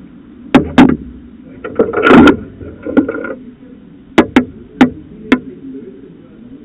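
Handling noise right at the camera's microphone. A series of sharp knocks and taps, two near the start and four more about four to five seconds in, with a louder rustling scrape about two seconds in, over a steady low background hum.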